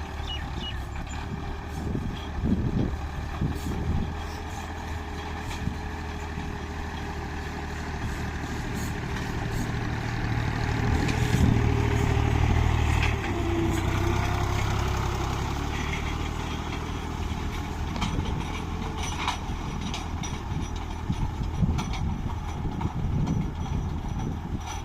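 Tractor engine running steadily while ploughing. It grows louder about ten seconds in and eases off again a few seconds later, with scattered light knocks and rattles over it.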